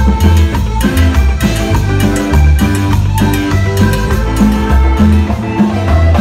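Live cumbia band playing loud, with accordion, electric bass, congas and drum kit keeping a steady dance beat.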